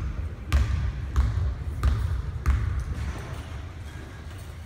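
Basketball dribbled on a hardwood gym floor before a free throw: about five bounces in a steady rhythm, roughly one every two-thirds of a second, stopping about two and a half seconds in.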